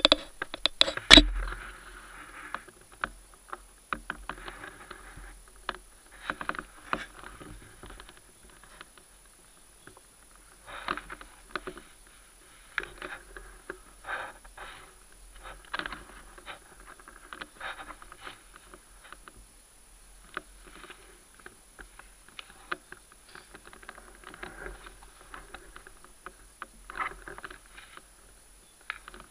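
Irregular rustles and clicks of a person shifting slightly in dry leaf litter, with clothing and gear brushing close to the camera, and a sharp knock about a second in.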